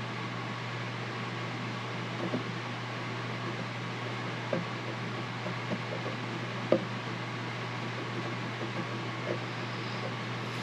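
A steady low hum fills the background, with a few faint, light ticks and scratches, the sharpest a little past the middle, as a caliper jaw is drawn along a thin maple veneer strip to score a line in it.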